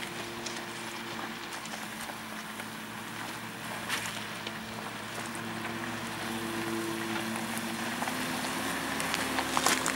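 Suzuki Jimny's engine running steadily as it crawls over rough off-road ground, its note rising a little about eight seconds in. A few sharp knocks break in, one about four seconds in and a couple near the end.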